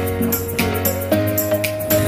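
Background music with a steady beat and long held melody notes.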